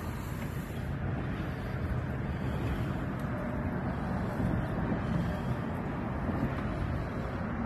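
Steady wind rumbling on the microphone out on open water, a low, even noise with no distinct events.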